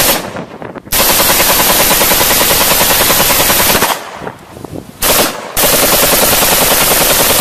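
AK-pattern rifle firing rapid strings of shots: a brief burst at the start, a long string of about three seconds, a short burst about five seconds in, then another long string.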